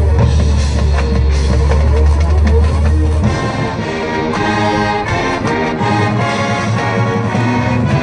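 Marching band playing, with brass and drums over a deep sustained bass tone. The bass drops out about three seconds in, leaving brass chords with rhythmic drum hits.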